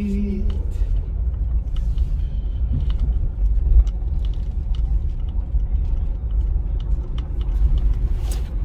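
Car driving along a road: a steady low rumble of road and engine noise, with a few faint ticks.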